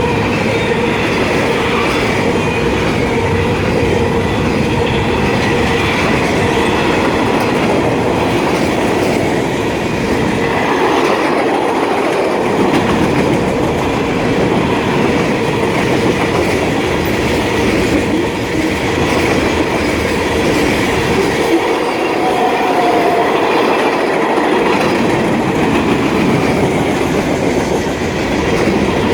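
Train cars rolling past at speed with a loud clickety-clack over the rails, and a steady high squeal from one squeaking wheel in the consist.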